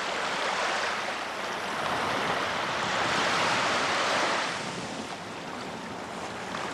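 Small waves breaking and washing up onto a sand beach. The hiss of the wash swells, then falls away about two-thirds of the way through.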